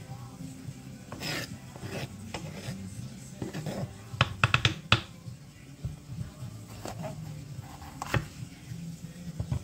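Knife and a green bell pepper knocking and scraping on a wooden cutting board: a quick cluster of sharp taps about four to five seconds in, and another knock about three seconds later.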